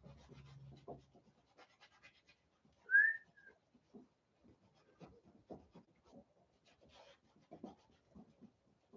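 Paintbrush dabbing and scratching against a canvas in short, irregular strokes. About three seconds in, a single short rising chirp, the loudest sound, cuts through once.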